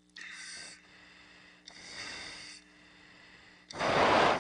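Breathing through a pilot's oxygen mask: two soft, hissing breaths, then a loud, sharp rush of breath near the end.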